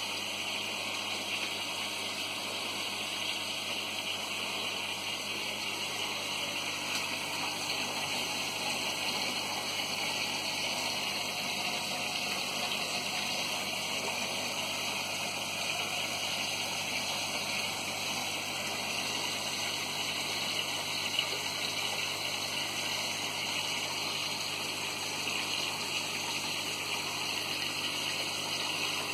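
Aquarium filtration running: a steady, unbroken rush of water from the tank's pump and filters.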